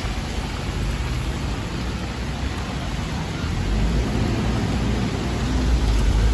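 Steady hiss of heavy rain with wind buffeting the phone's microphone; the low rumble of the wind grows louder about four seconds in.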